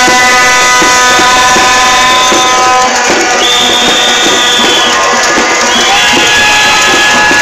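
Protest march noise: a held horn note for the first few seconds, then long whistle blasts of about a second each, repeated, over steady drumming.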